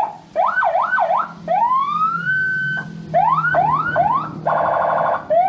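Senken CJB100BD electronic siren cycling through its tones: a run of quick rising yelps, a long rising wail that cuts off, more quick yelps, then a brief harsh buzzing horn tone. Another long rising wail starts near the end.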